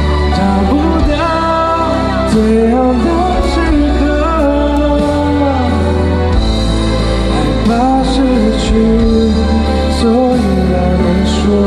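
A pop ballad: a lead singer holds and glides through a melody over band backing with a heavy, steady bass.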